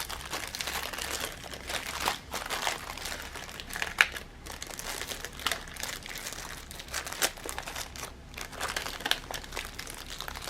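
Plastic packaging of a diamond-painting kit crinkling as it is handled and its contents are worked loose, with sharp crackles about 4, 7 and 9 seconds in.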